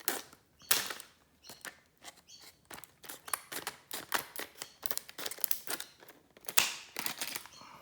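Plastic retail packaging being handled and opened to free a padlock: irregular crinkling and sharp crackles, with the loudest cracks just under a second in and again near the end.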